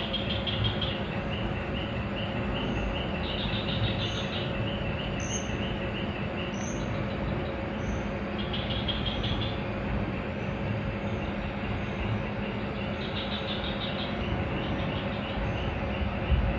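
Insects calling in high pulsing trills about a second long, repeated several times, with a short high chirp repeating at a steady pace for a few seconds in the middle, over a steady low rumble with a faint hum.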